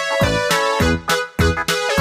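Upbeat electronic background music with a steady beat and a bright, pitched melody.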